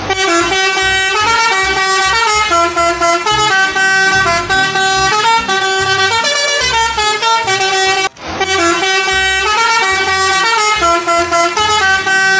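Musical vehicle horn, a bus horn sound effect, playing a loud, buzzy tune in stepped notes. It breaks off briefly about eight seconds in and starts the phrase again.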